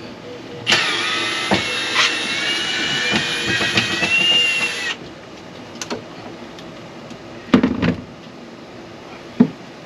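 Cordless drill-driver running for about four seconds, backing out a screw that holds a boat washdown pump, its pitch rising a little before it cuts off. A couple of short knocks follow later.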